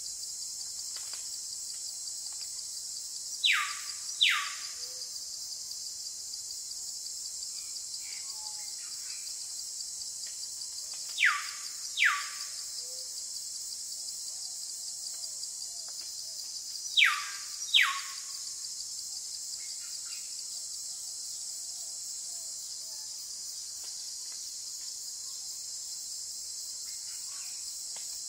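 Steady high-pitched insect chorus, with three pairs of short, loud whistled bird calls several seconds apart, each note sliding quickly downward.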